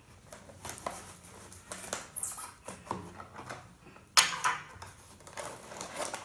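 A knife blade scraping and cutting through the packing tape on a cardboard box, in short scratchy strokes, with a louder sharp tearing sound about four seconds in as the box is pulled open.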